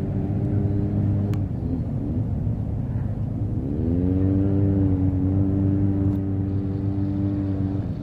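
Motor vehicle engine running at idle, its pitch gliding up about three and a half seconds in, holding steady, then dropping briefly near the end.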